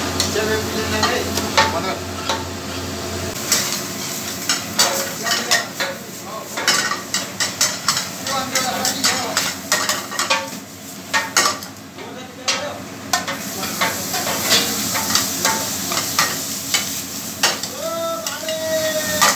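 Food sizzling in a pan over a gas burner, with many quick clinks and scrapes of metal utensils against the pan as the cook stirs and tosses.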